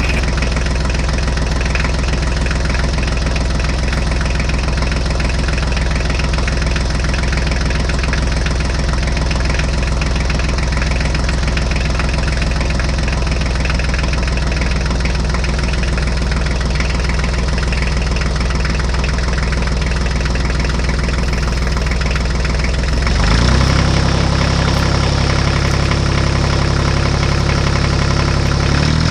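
Engine running steadily; about 23 seconds in its note changes and it gets a little louder.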